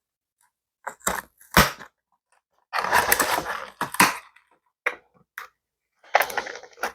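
Toy packaging being opened by hand: a string of sharp snaps and clicks of cardboard and plastic, with a rustling stretch lasting about a second near the middle.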